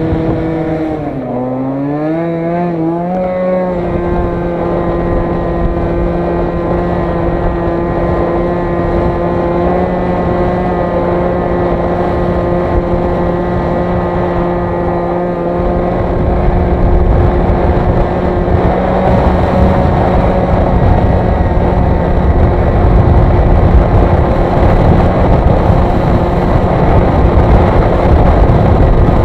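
Aprilia SR50R scooter's 50 cc two-stroke single-cylinder engine under way: the revs dip briefly, climb back and then hold at a steady high pitch as the scooter keeps going. From about halfway, wind rumble on the microphone grows louder as the speed builds.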